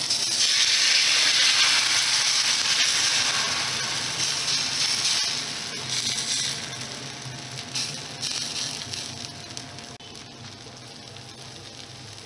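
Thin dosa batter hitting a hot iron griddle and sizzling. The hiss comes in suddenly, is loudest in the first couple of seconds, and slowly dies down as the dosa sets.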